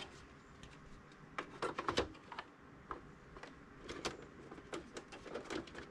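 Light clicks and taps of a Chevy Silverado instrument cluster's black plastic rear housing being handled and fitted onto the cluster, with a quick run of clicks about a second and a half in and scattered ones after.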